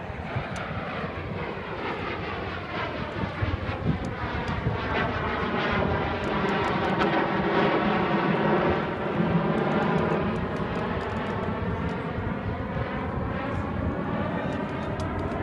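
Jet engines of two Canadair CT-114 Tutor jets passing in a smoke-trailing dive, swelling to their loudest in the middle and easing off near the end, with sweeping, phasing bands running through the jet noise.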